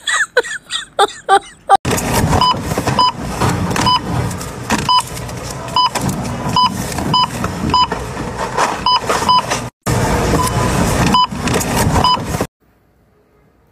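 A checkout barcode scanner beeping again and again, one short identical beep every half second or so, over loud busy background noise that cuts off suddenly near the end. It opens with a couple of seconds of short voice sounds.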